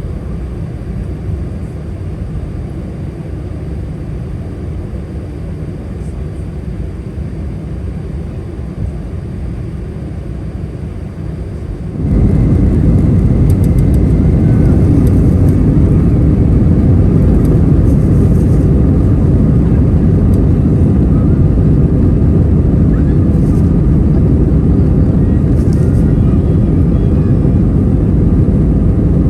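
Steady roar of engine and air noise inside an Airbus A319 airliner cabin. The noise jumps abruptly louder about twelve seconds in, then holds steady.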